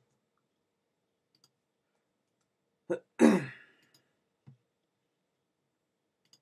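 A person's short cough-like throat sound about three seconds in, a small catch followed by a louder burst that fades. Otherwise only a few faint clicks.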